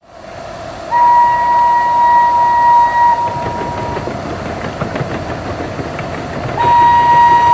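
A train running with a steady rumble and rattle while its whistle blows two long steady blasts: one about a second in lasting about two seconds, and another starting near the end.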